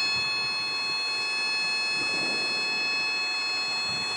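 Helicopter cabin noise during a practice autorotation descent: a steady rush of rotor and airflow noise under several high, steady whining tones.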